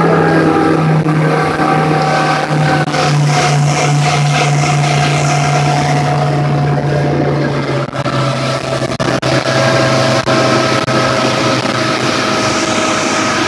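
Motorboat engine running steadily at cruising speed, with water rushing and spraying along the hull and a few knocks about the middle.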